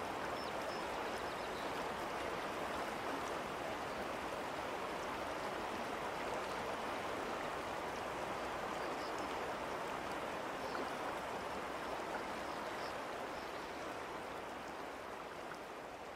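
Shallow river water running steadily over a ford, an even rushing sound that eases slightly near the end.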